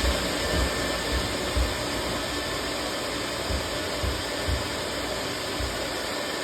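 Dryer-vent cleaning equipment running steadily, a loud even noise, with a dull thump every second or so as lint is extracted from a long-clogged vent duct.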